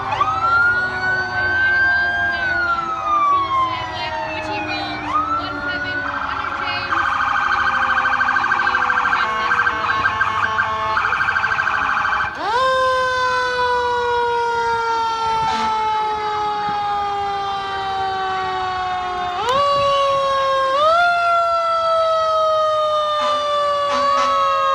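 Fire engine sirens wailing as a line of trucks passes, several overlapping: each winds up quickly and falls slowly in pitch. A fast warbling siren runs for several seconds in the middle, and short rising whoops come near the end.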